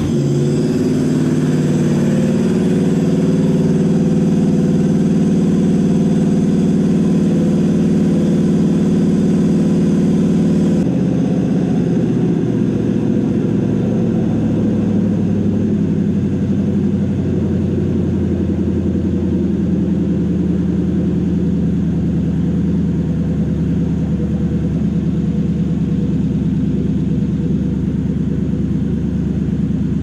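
Toyota 1UZ-FE 4.0-litre V8 idling on an engine stand, settling after a throttle blip, on its first runs with a freshly wired Link ECU. About eleven seconds in, the idle steps down to a lower, steadier speed.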